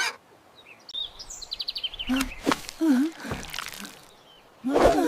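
Cartoon bird sound effects: a quick run of high chirps, then short squawky vocal sounds that waver in pitch, and a loud noisy burst near the end.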